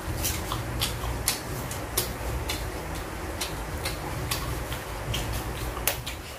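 Close-miked eating sounds: a string of irregular sharp clicks, a few each second, from chewing and handling food. About six seconds in comes a louder snap as a cucumber is broken in half. A low steady hum runs underneath.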